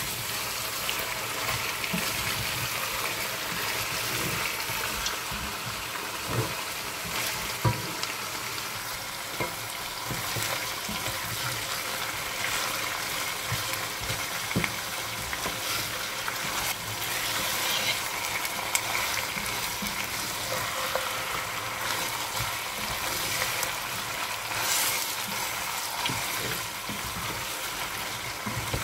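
Raw lamb cubes sizzling in oil with whole spices in a nonstick pot as they are seared and stirred with a spatula. A steady frying hiss runs throughout, broken by a few sharp knocks of the spatula against the pot.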